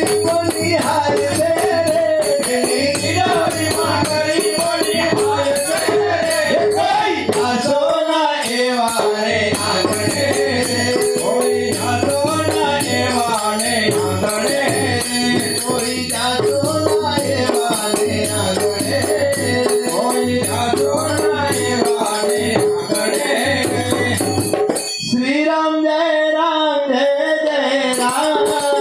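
Live Gujarati bhajan: a male voice singing over harmonium, tabla and jingling hand percussion, with hand-clapping in time. About 25 seconds in, the drum drops out for a few seconds while the singing and harmonium carry on.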